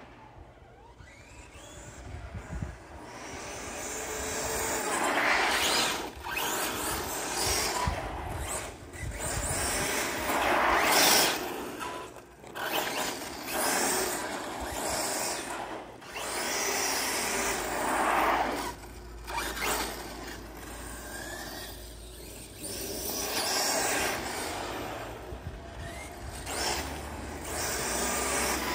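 Electric-converted 1/8 scale Hot Bodies RC car driving on asphalt: its electric motor and tyres make a rough, rasping noise that swells and fades again and again as it speeds up, slows and passes back and forth.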